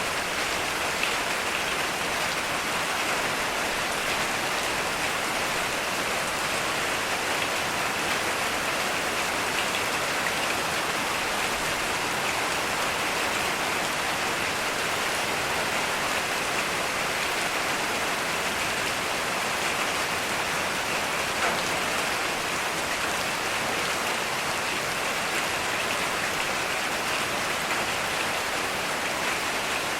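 Heavy rain falling steadily, an even, dense hiss of drops with no thunder.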